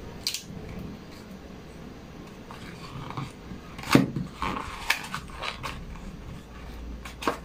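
Hands handling a phone's cardboard retail box and its packaging while working the charger adapter out of its compartment: soft rustling with a few sharp clicks and taps, the loudest about four seconds in.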